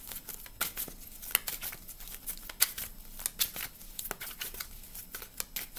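A deck of tarot cards being shuffled by hand: irregular crisp snaps and rustles of cards slapping together, several a second.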